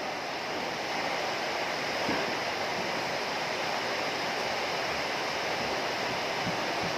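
Heavy rain falling steadily, an even hiss of dense drops.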